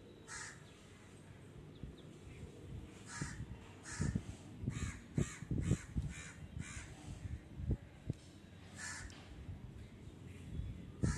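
Bird calls, short and repeated about nine times at uneven gaps, with several low thumps in between, about four to eight seconds in.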